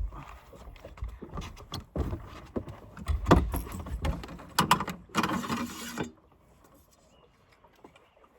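Handling noise on a fishing boat: a quick run of clicks, knocks and scraping as gear is handled and a caught fish is dealt with, lasting about six seconds.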